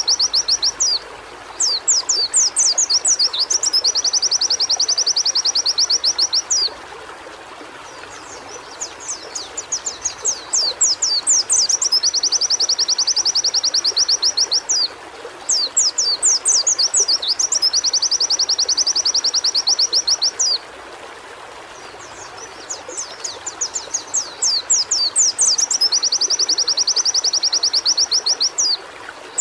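White-eye (pleci) singing: each phrase opens with quick high sweeping notes and runs into a fast, even trill, repeated about four times with short gaps, over a steady background hiss.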